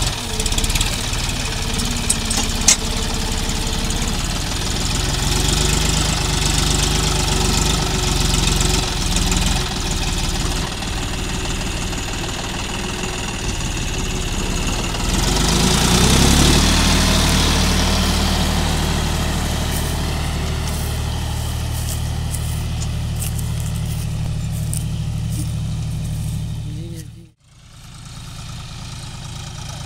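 John Deere 5050 D tractor's three-cylinder diesel engine working under load as it drags a loaded trolley through wet paddy-field mud. About halfway through it revs up louder; near the end the sound cuts out for a moment and comes back quieter.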